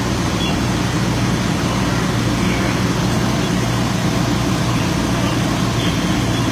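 Fire apparatus diesel engines running steadily, a constant low rumble with an even noisy hiss over it.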